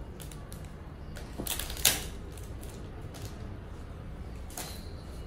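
Plastic packaging crinkling and clicking as it is handled, in short irregular bursts, with a sharp snap about two seconds in.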